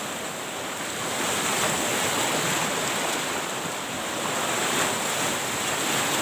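Sea surf washing in under and around the platform, a steady rushing that swells and eases a little.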